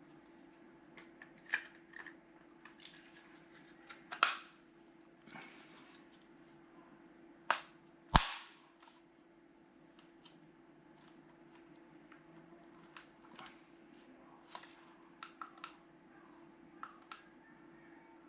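A string of small clicks and taps, with sharp loud snaps about 4, 7.5 and 8 seconds in, the last the loudest; a faint steady hum underneath.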